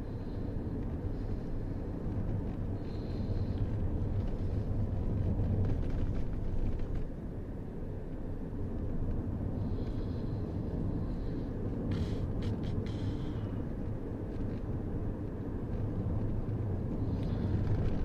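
Car interior noise while driving slowly: a steady low rumble of engine and tyres on the road, with a few quick clicks or knocks about twelve seconds in.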